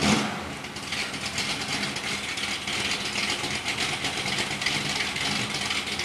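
Chevrolet 454 big-block V8 in a 1969 Camaro SS with a radical cam, idling after a brief rev right at the start that settles down within about a second.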